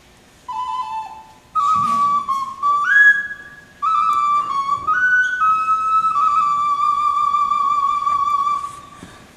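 Ocarina playing a slow, simple melody of clear, almost pure notes in three phrases, the last ending on a long held note that fades away near the end.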